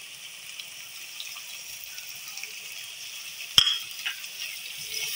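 Oil sizzling steadily in a pot of frying onions and garlic-ginger paste as chopped tomatoes and dry spice powders are tipped in. One sharp knock about three and a half seconds in, the loudest sound, with a lighter knock just after.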